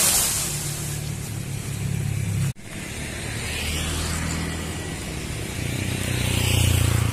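Motor vehicle engine running, its low hum shifting in pitch, with a noisy rush over it. The sound cuts out for an instant about two and a half seconds in.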